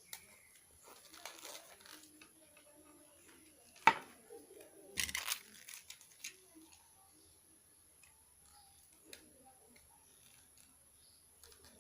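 Handling noises from small-parts bench work: light rustles and scrapes, a sharp click about four seconds in, and a short rustling clatter about a second later.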